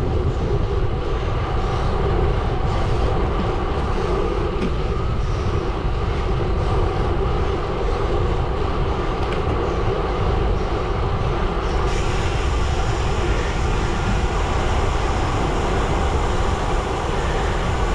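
Gravel bike tyres rolling over a gravel road: a steady rumble and crunch, with wind buffeting the microphone.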